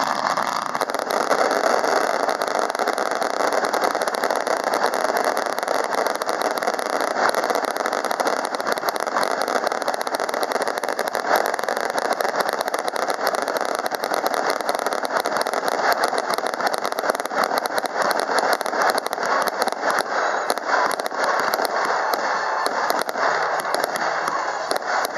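Fireworks finale salvo: many effects firing at once in a dense, continuous crackling barrage of rapid bangs, with single bangs standing out more clearly in the last several seconds.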